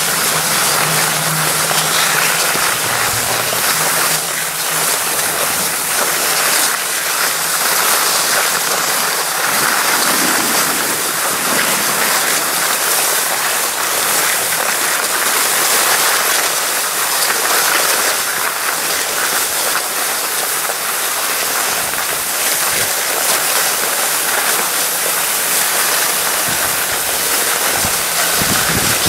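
Steady rushing hiss of skis sliding over groomed snow, mixed with wind buffeting the microphone.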